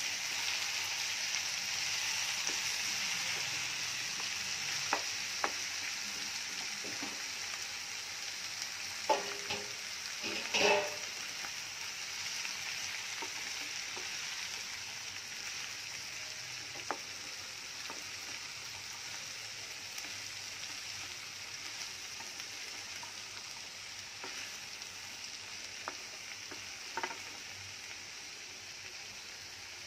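Sliced ivy gourd frying in oil with onion and tomato in a nonstick pan: a steady sizzle that slowly fades, with occasional scrapes and taps of the spatula being stirred through, a cluster of them about ten seconds in.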